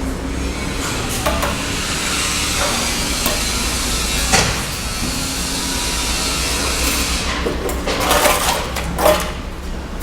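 Bricklayer's tools knocking on cement brick: one sharp knock a little over four seconds in and a cluster of knocks near the end, over a steady low hum and hiss.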